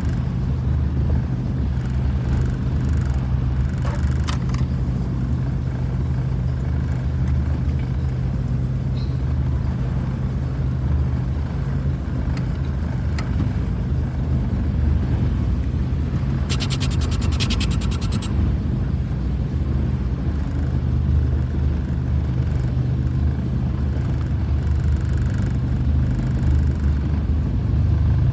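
A 1992 VW Voyage GL 1.8's four-cylinder engine running at a steady idle. About sixteen seconds in, a rapid ticking lasts for a second and a half.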